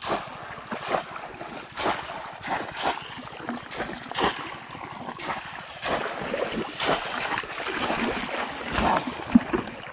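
Splashing and sloshing in shallow water, with a sharp splash roughly once a second.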